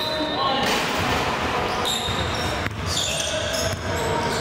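Gym sounds of a basketball game in play: a basketball bouncing on the court, short squeaks from sneakers, and crowd voices throughout.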